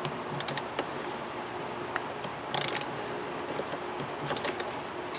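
Small hand ratchet wrench clicking in short bursts as it is swung back between turns, tightening bolts in a truck's engine bay.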